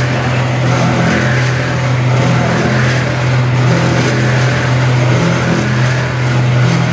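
Processing machinery running steadily: a constant low hum with a noisy mechanical whirr over it.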